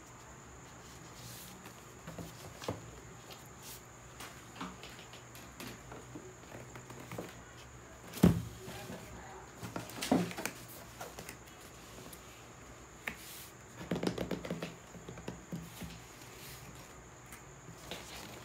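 Handling noise on a desk: rustling of a fabric laptop bag and light taps of cardboard boxes, with one heavy thump about eight seconds in as the cardboard laptop box is set down, and a short flurry of rustles and taps later on.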